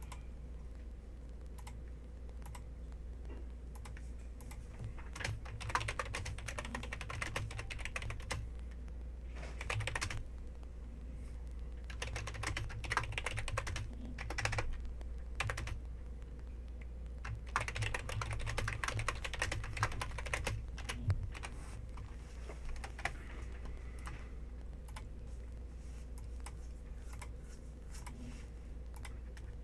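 Typing on a computer keyboard: several bursts of rapid key clicks with short pauses between them, over a steady low hum.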